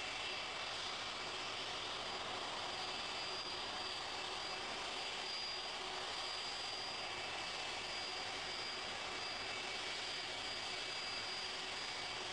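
Boeing 747 jet airliner's engines at taxi power: a steady rushing noise with a high, even whine.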